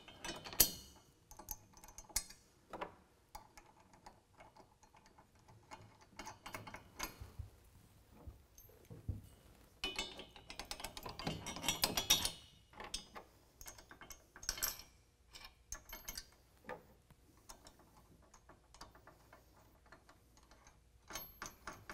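Small metal hardware clicking and clinking as a bolt, washers and lock nut are fitted by hand into a tubular steel crossbar bracket. It comes as scattered ticks, with a busier run of clicks about ten to twelve seconds in.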